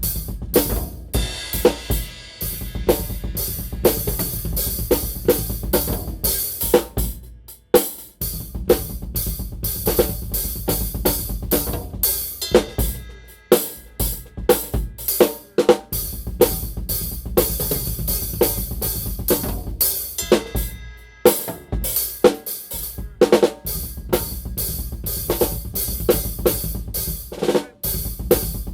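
Drum kit being played: a steady groove of kick drum, snare, hi-hat and cymbals, with short breaks between phrases about every six to seven seconds.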